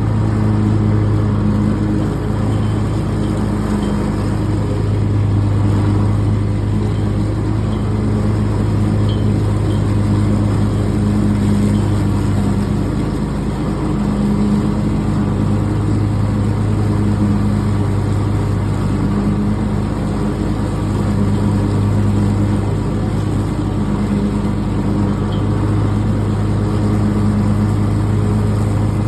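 Riding lawn tractor's engine running steadily during mowing, its pitch and level swelling and easing a little every few seconds.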